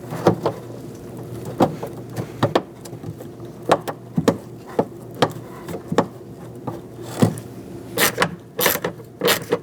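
Ratchet with a 10 mm socket and extension turning in a door-handle mounting bolt: irregular metal clicks and short ratcheting runs, coming closer together near the end, over a steady low hum.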